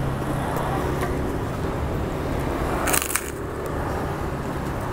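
Steady street traffic noise with a low engine hum, and a short crackle about three seconds in.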